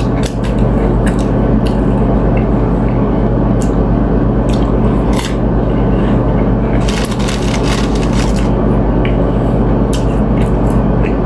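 Close-up eating of tuna ceviche with chips: wet squishing chews and sharp crunches, scattered throughout with a dense run of crunching about seven seconds in. Underneath runs a loud, steady low hum.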